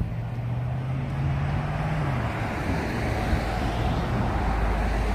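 Road traffic: a vehicle's engine hum, dropping in pitch about two seconds in, over a hiss of tyres on the road that swells as it passes.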